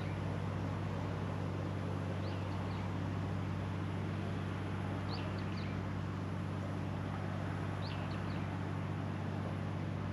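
A small bird repeating a quick three-note high call about every three seconds, over a steady low hum and an even hiss.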